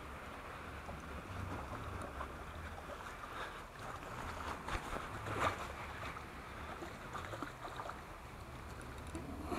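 Sea water lapping against shore rocks, under a low rumble of wind on the microphone that rises and falls. A few sharp clicks and knocks come around the middle.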